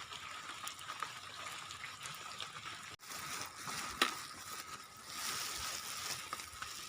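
Steady rain falling, an even hiss, with a faint steady high tone under it and a single sharp click about four seconds in.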